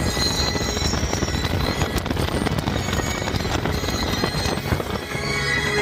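Family launch coaster train running along its track: a steady, dense rattling rumble with many rapid clacks, mixed with rushing wind, easing briefly near the end.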